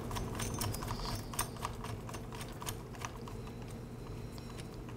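Faint clicks and light scraping of a hand screwdriver turning a screw into the carburetor mount, densest in the first couple of seconds and then sparser.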